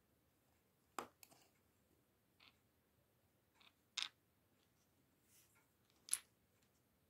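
Plastic LEGO pieces clicking and tapping as they are handled and pressed together: three sharp clicks about a second in, around four seconds in and near the end, with a couple of fainter ones between.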